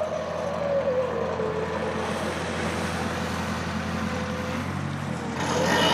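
Engine of a log-salvage work boat running steadily, with a whine that drops in pitch about a second in. The sound grows louder near the end.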